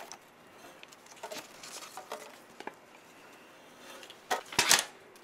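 Handling noise close to a microphone: a small tin box and folded paper notes being opened, giving scattered light clicks and rustles, with a louder burst of handling noise about four and a half seconds in.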